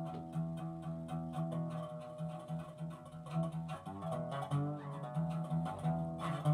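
Resonator guitar played lap-style with a steel slide bar: a run of picked notes, some of them gliding in pitch under the bar.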